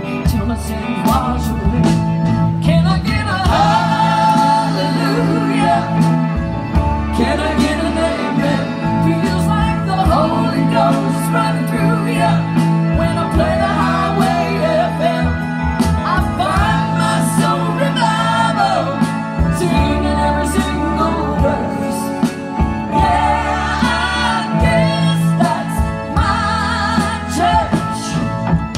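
Live band playing a country-rock song: drums, bass, electric guitar and keyboard, with saxophone and trumpet up and playing, and a melody line running over the steady bass.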